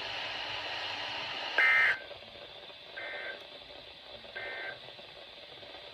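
EAS end-of-message data bursts from a NOAA Weather Radio broadcast: three short two-tone digital screeches about a second apart, the first loudest. Radio hiss runs under them, easing off after the first burst; the bursts signal that the alert message is over.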